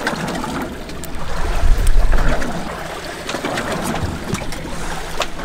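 Ocean water sloshing against the hull of a boat, with a low rumble that peaks about two seconds in and a few light clicks later on.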